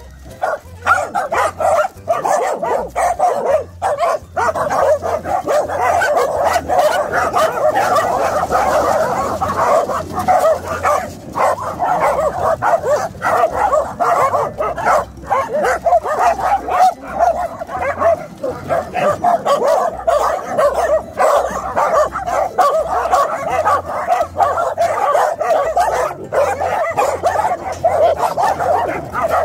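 A pack of dogs, mostly Welsh corgis, barking, yipping and whining together without a break, all excited to be let out.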